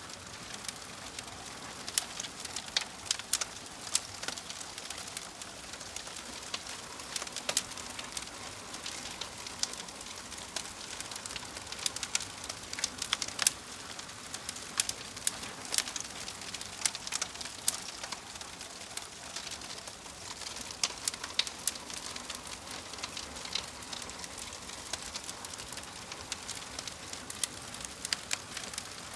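Wood logs burning in a fireplace, with a steady hiss and frequent sharp, irregular crackles and pops.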